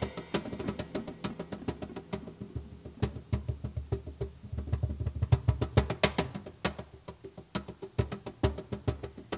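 Hand drums, congas and cajón, played in a fast run of sharp strikes, with a stretch of deeper thumps about three to six seconds in.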